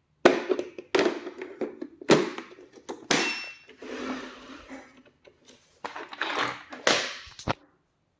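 A series of irregular knocks and thuds, with noisy scraping or rustling between them, stopping shortly before the end.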